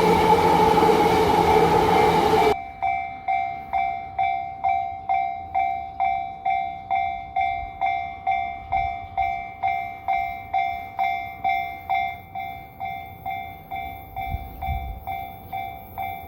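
A train running past loudly, then, after a sudden cut about two and a half seconds in, a Japanese level-crossing warning bell ringing steadily at about two strikes a second, growing a little fainter near the end.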